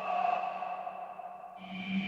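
Roland JD-990 synthesizer playing a preset with held, pitched notes and a few bright overtones. The note changes about one and a half seconds in to a lower tone.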